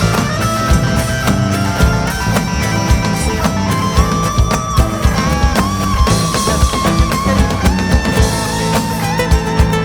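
Instrumental Brazilian soul music: a drum kit keeps a steady beat under guitar, with a lead melody of long held notes that bend up and down.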